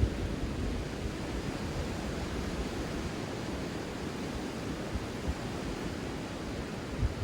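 Surf washing on a beach as a steady rushing noise, with wind buffeting the microphone in low gusts at the start and again near the end.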